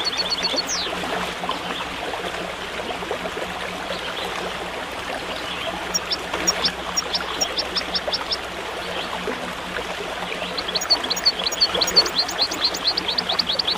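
Steady rush of flowing stream water. A small bird sings quick runs of high repeated chirps over it: right at the start, again from about six seconds in, and from about eleven seconds on.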